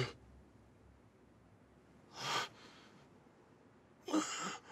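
Near quiet broken by two short breath sounds from a person: a quick exhale or sniff about two seconds in, then a louder, slightly voiced sigh near the end.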